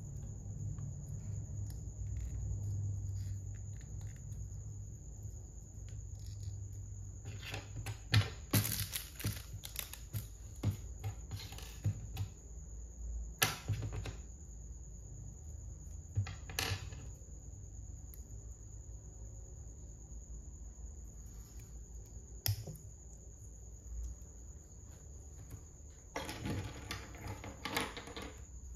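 Small plastic Lego pieces clicking and tapping as they are pressed together and set down on a wooden table. The sharp clicks are scattered, busiest about a third of the way in and again near the end, over a faint steady high whine.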